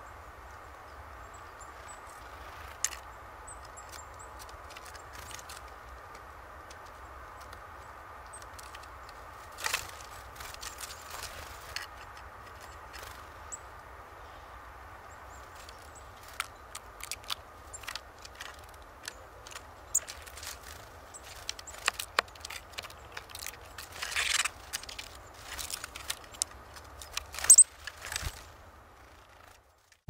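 Small birds tapping and scraping on a wooden feeder strewn with sunflower seeds: scattered sharp clicks and knocks, sparse at first and busier in the second half.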